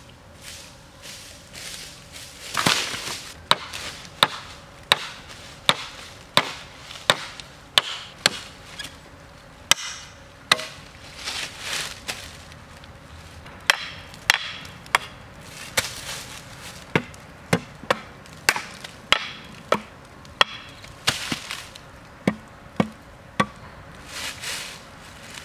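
A machete chopping green bamboo: a long series of sharp hacks, about one or two a second, with a pause of a few seconds midway. A louder rustling crash comes about three seconds in.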